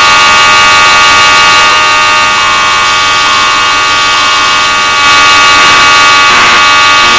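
Fire alarm horn sounding a loud, steady, buzzy evacuation tone.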